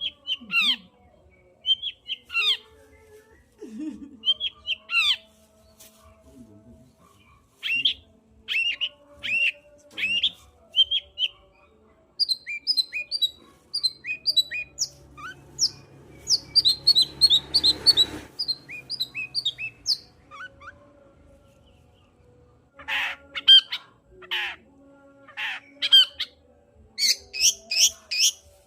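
Long-tailed shrike (cendet) singing in energetic bursts of short, sharp whistled notes that sweep downward, with a rapid chattering run in the middle and harsh, buzzy squawks near the end. A brief scratchy rustle sounds under the song about two-thirds of the way through.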